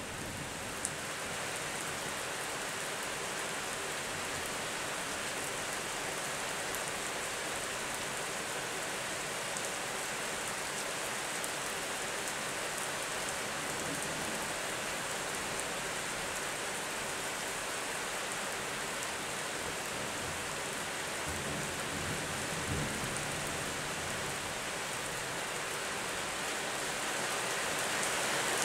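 Steady rain falling, growing a little heavier near the end, with a brief low rumble of distant thunder about three-quarters of the way through.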